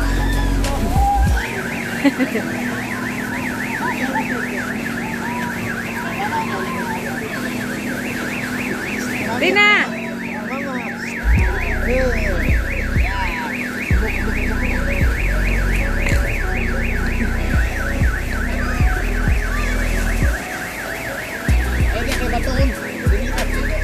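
A high electronic-sounding warble, rising and falling rapidly several times a second, starts about a second in and carries on without a break. A low rumble comes and goes beneath it in the second half.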